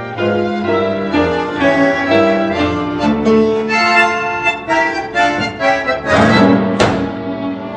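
Instrumental background music with a reedy, accordion-like melody over chords. About six seconds in, a brief noisy swell ends in a sharp hit.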